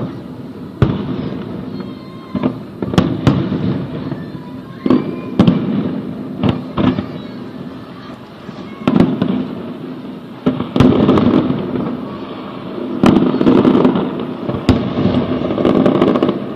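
Aerial fireworks shells bursting: a dozen or so sharp booms at irregular intervals, each trailing off in a rolling rumble, coming thicker and louder in the second half.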